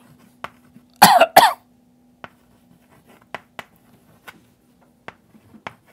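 A man coughs, two quick loud bursts about a second in. After that, light scattered clicks of chalk tapping and scraping on a blackboard.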